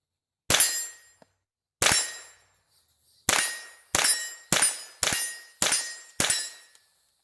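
Eight semi-automatic .22 LR shots from an AR-15 fitted with a CMMG .22 LR conversion bolt. After two spaced shots they come faster, about one every half second, and each sharp crack has a short metallic ring. The rifle is cycling reliably now, which the shooter puts down to the kit breaking in.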